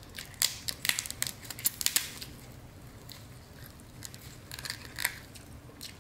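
Snow crab leg shells cracking and snapping as they are broken apart by hand. A quick run of sharp cracks comes in the first two seconds, and another short cluster about five seconds in.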